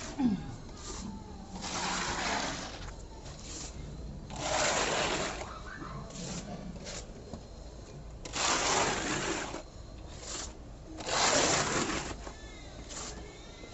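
A hand tool scraping over a textured wall coating in repeated strokes, each about a second long, with shorter scrapes between. A brief squeak comes right at the start.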